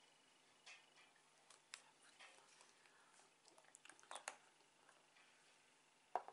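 Near silence broken by a few faint clicks and lip smacks as freshly applied lipstick is pressed in, with a small cluster of them about four seconds in and one more near the end.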